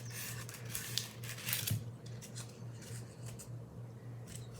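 Rustling and small clicks of snap-button jewelry pieces being handled, busiest in the first two seconds, over a steady low hum.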